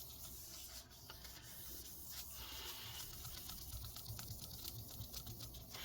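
Faint rubbing of a folded paper towel, dampened with isopropyl alcohol, wiped over a laptop LCD panel, with quick scratchy strokes that come faster in the second half.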